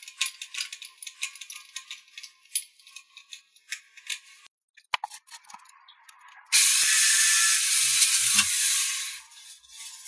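Small metal parts clinking and rattling as the stainless-steel cup is handled against the drill bit. About six and a half seconds in, a loud steady whirr of the drill cutting through the thin-walled steel cup starts and lasts under three seconds.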